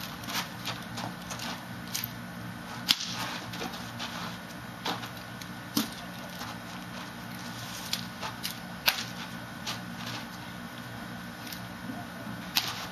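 Colorguard rifle being spun, tossed and caught, each catch or hand strike a sharp slap or click on the wooden rifle, several times over a steady hum.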